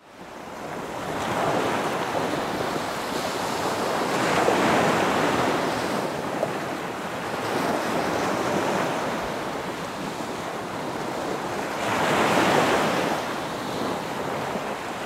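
Sea surf washing onto a beach, a steady rush that swells and eases, loudest about four and twelve seconds in.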